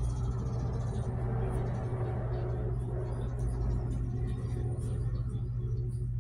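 A steady low hum with a rumbling background noise, unchanging in level.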